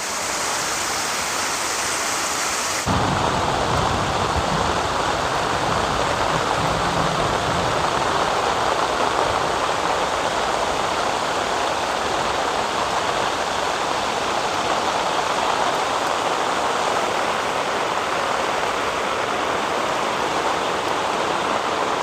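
Steady rain falling on tent and tarp fabric, a continuous hiss. About three seconds in it turns fuller and a little louder.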